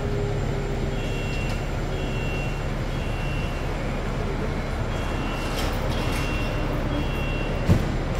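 Fire truck's diesel engine idling with a steady low drone, while a short, high electronic beep repeats about once a second. A brief thump about three-quarters of the way through.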